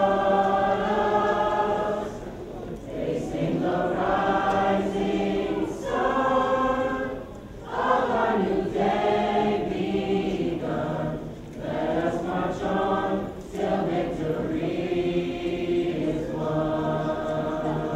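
A choir singing, in held phrases of a second or two with short breaks between lines.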